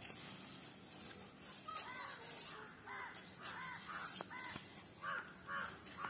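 A crow cawing repeatedly: a string of short calls from about two seconds in, loudest near the end.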